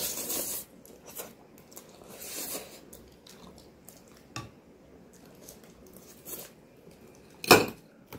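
People slurping and chewing ramen noodles, with forks clinking on plates: a slurp at the start, then scattered small eating noises and clicks. A short, louder noise near the end.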